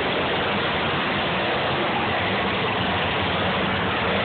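Several demolition derby cars' engines running together in a steady mass of engine noise, with faint pitch that rises and falls as the cars accelerate on the dirt.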